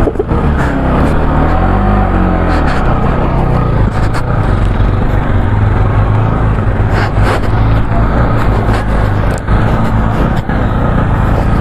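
Motorcycle engine running in gear on a rough off-road track, its pitch rising and falling in the first couple of seconds, then a steady drone with a few sharp knocks in the second half.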